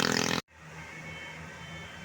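Loud tourist bus engine noise, a dense cluster of steady pitched tones, cuts off abruptly about half a second in. A quieter steady hum with a low droning tone follows.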